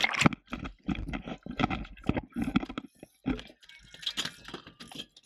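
Irregular splashing, knocks and rubbing from an action camera mounted on a gaff pole as it is dipped in the water and swung back aboard a boat.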